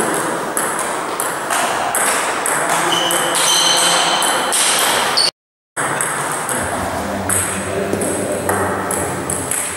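Table tennis rally: the celluloid ball clicking off the bats and bouncing on the table in a quick back-and-forth run of sharp clicks. The sound drops out for about half a second in the middle, then the clicking picks up again.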